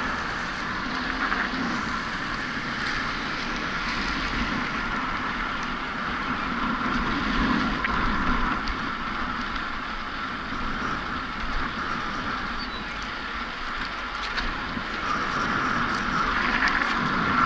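Steady road and wind noise from a bicycle riding along a paved street: tyres on the asphalt and air rushing past the camera's microphone, with no sudden events.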